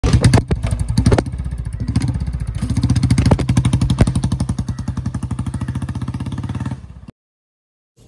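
Royal Enfield Bullet's single-cylinder engine with a short bottle silencer, revved sharply a few times at first, then running with an even beat of exhaust pulses as the motorcycle rides away. It fades and then cuts off suddenly about a second before the end.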